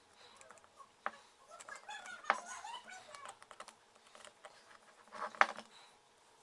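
Small hand tool clicking and scraping on the circuit board of a Toyota car computer as hardened silicone is picked away from the capacitors. Several sharp clicks stand out, the loudest about a second, two and five and a half seconds in, with short chirping calls in the background.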